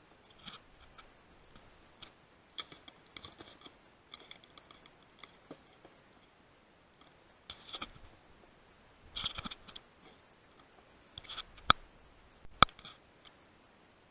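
Equipment handling noise: scratching and rubbing with scattered small clicks, then two sharp clicks close together near the end.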